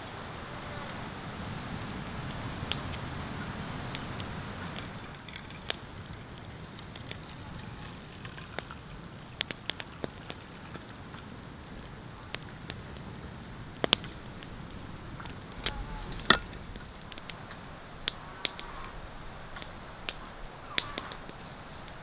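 Wood campfire crackling, with irregular sharp pops and snaps over a soft steady hiss; the loudest pop comes about two thirds of the way through.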